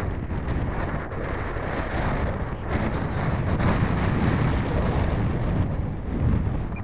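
Wind buffeting the microphone: a gusty low rumble that swells through the middle and eases a little near the end.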